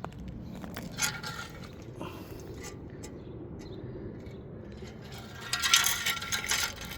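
Metal parts and tools being handled: a sharp click about a second in, then a run of metallic clinks and rattles near the end.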